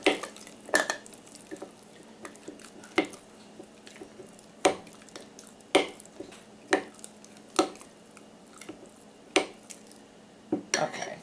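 A spoon stirring thick flour-and-water sourdough starter in a glass jar, knocking against the glass about ten times at uneven intervals.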